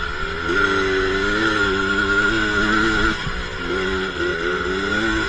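ATV engine running under varying throttle, its pitch rising and falling. It eases off about three seconds in, then picks up again. A steady high whine runs throughout.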